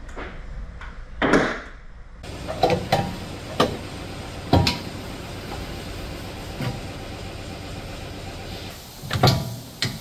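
Repair-shop work noise: scattered sharp knocks and clanks of metal tools and parts over a steady background hum.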